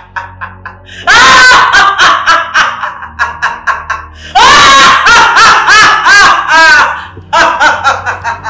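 A woman laughing loudly in long runs of rapid, repeated syllables. It starts about a second in, breaks off briefly around three seconds, returns in a longer run, and ends with a shorter burst near the end.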